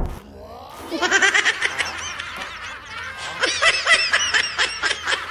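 High-pitched cartoon Rabbid voices snickering and giggling in a quick run of short, squeaky, wobbling sounds, starting about a second in.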